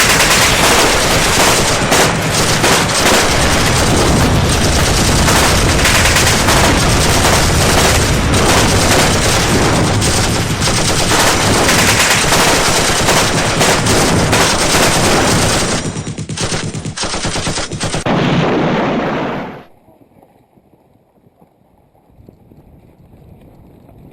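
Dense, continuous rapid automatic gunfire, very loud, thinning out about 16 seconds in and cutting off suddenly near 20 seconds.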